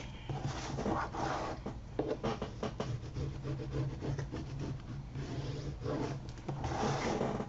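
Bone folder rubbing and scraping over paper folded onto the edge of a chipboard frame, in an irregular run of short strokes, pressing the paper down flat and square against the card.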